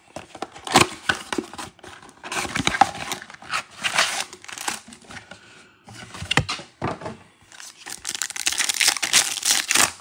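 Cardboard Prizm basketball blaster box being opened and its foil trading-card packs crinkling and tearing open, in irregular rustling bursts with short pauses.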